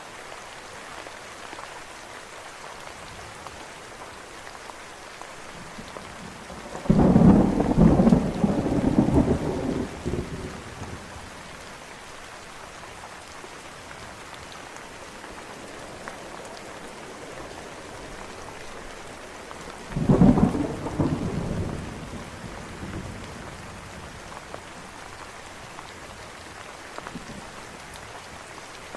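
Steady rain falling, with two loud cracks of thunder rumbling off: one about a quarter of the way in lasting a few seconds, a shorter one about two-thirds of the way through.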